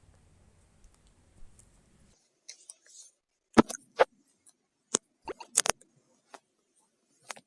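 A string of sharp, irregular clicks and taps, about eight in all, starting after a couple of seconds; the loudest comes about three and a half seconds in.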